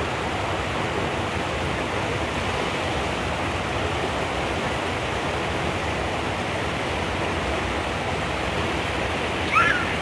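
A steady rushing noise at an even level. Near the end comes one brief, high sound that slides in pitch.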